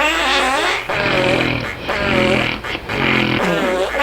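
Snoring with fart-like sounds: each breath gives a low, steady buzz followed by a higher, wavering whine, repeating about every 1.3 seconds, three times over.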